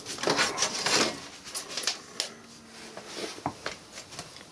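Packaging rustling for about a second, followed by a few light clicks and taps as computer parts are handled.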